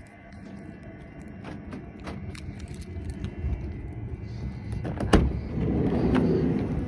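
Scattered small clicks and steps, then a sharp clunk about five seconds in as a VW T5 campervan's door is opened, followed by a rumble of over a second from the door moving.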